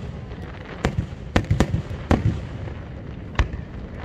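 Aerial fireworks bursting: a quick run of five sharp bangs from about one to two and a half seconds in, then a single loud bang a little past three seconds, over a low rumble.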